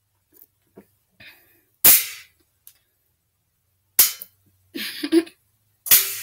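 Three loud, sharp bangs about two seconds apart, with softer knocks and rustling between them.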